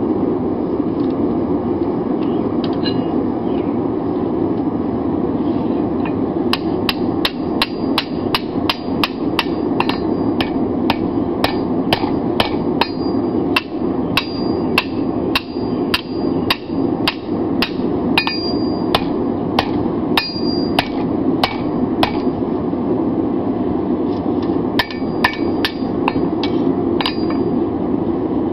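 Blacksmith's hand hammer striking red-hot 5160 steel on an anvil while forging the socket end of a seax blade: a few blows, then quick runs of about two a second, some with a bright anvil ring, with a short pause a few seconds before the end. A steady rushing noise runs underneath.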